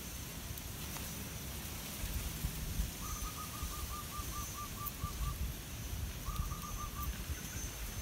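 A bird calling in the background: a quick, even run of about ten short notes on one pitch, then after a pause a shorter run of four or five, over a low rumble of wind on the microphone.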